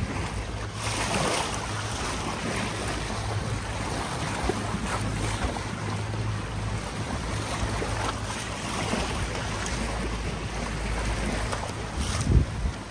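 A fishing boat's motor running steadily under way, with water rushing past the hull and wind buffeting the microphone. A louder thump near the end.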